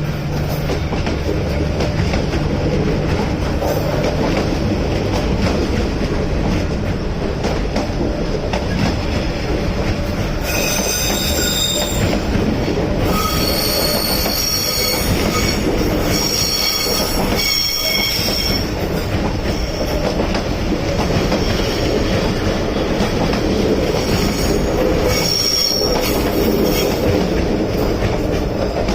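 Vietnam Railways SE26 passenger train running steadily on the track, with a continuous rumble. High wheel squeal sets in about a third of the way through and lasts several seconds, then returns briefly near the end, typical of wheels rounding the curve of a loop.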